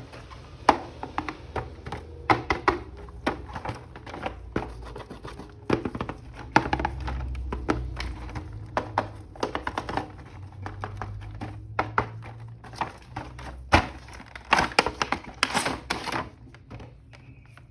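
An action figure being unboxed by hand: irregular plastic clicks, taps and crinkling of packaging, over a low rumble.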